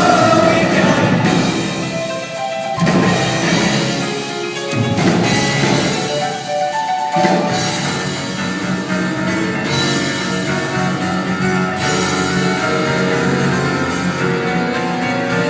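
Music led by a mallet-percussion melody, marimba- or xylophone-like, with some drums. The music breaks off and changes a few times in the first seven seconds.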